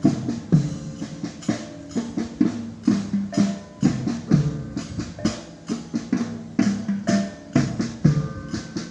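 Bregada marching music: drums beating a steady march at about two strokes a second, with ringing pitched percussion tones sounding under the beat.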